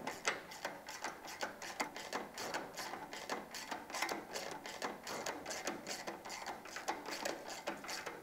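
Hand ratchet on a socket extension clicking in a steady run of quick clicks as bolts are run in and snugged up, not too tight.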